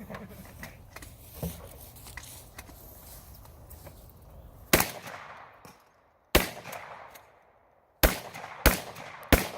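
Five pump-action shotgun shots: the first about five seconds in, the next a second and a half later, then three closer together near the end, each trailing off in an echo.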